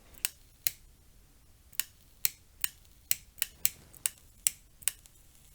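Sharp, irregular crackling clicks, about eleven in five seconds, from the opened Ferrex 40V cordless angle grinder with its battery connected. The owner first takes it for a noise from the motor, then traces the crackling to under the control board, where there is possible corrosion.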